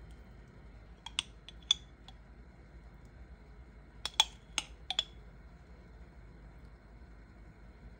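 Metal spoon clinking as sauce and doubanjiang are spooned into a wok of minced beef: a few sharp, ringing clicks about one second in, then another cluster of four or five about four seconds in, over a faint steady background.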